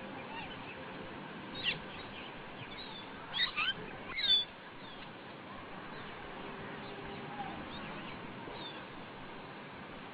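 Birds chirping: short, quick calls that sweep up and down in pitch, bunched between about one and a half and four and a half seconds in, then sparser, over a steady background hiss.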